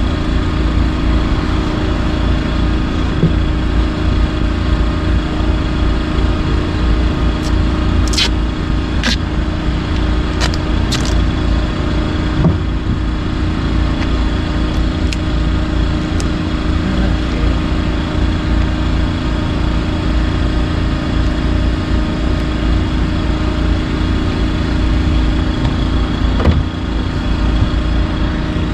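An engine running steadily at idle, an even hum with a low rumble. A few sharp clicks and taps from handling a plastic fuel can come about 8 to 11 seconds in.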